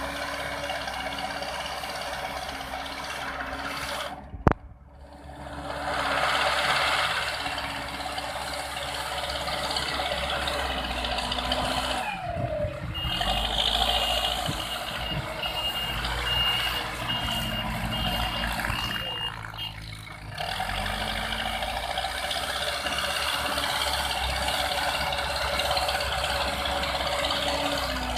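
Heavy construction machinery running at a road works site, with a reversing alarm giving a row of evenly spaced high beeps for a few seconds around the middle. A single sharp click comes about four seconds in, and the machine noise jumps abruptly twice.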